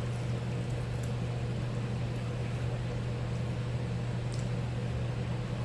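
Steady low electrical or appliance hum with a light even hiss, broken only by a couple of faint clicks.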